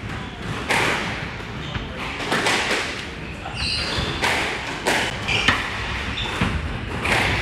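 Squash rally: the rubber ball smacked by rackets and thudding off the court walls, a quick series of sharp hits roughly every half second to second.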